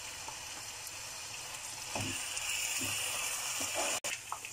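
Onion paste sizzling in hot oil in a frying pan, louder from about two seconds in as it is stirred with a spoon, with a few soft knocks of the spoon against the pan.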